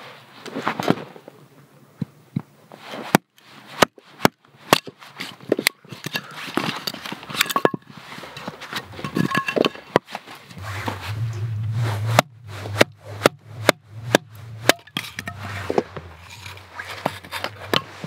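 A hatchet splitting dry hardwood firewood: repeated sharp, irregular knocks as the blade strikes and the wood cracks apart, with handling and shifting of the split pieces between strikes. A low hum comes in about ten seconds in.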